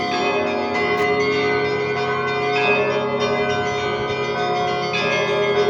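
Russian Orthodox church bells ringing on without a break: many bells of different pitches struck in a quick, overlapping peal. The onlooker suspects it is a recording played from the bell tower rather than live ringing, since the bells do not seem to move.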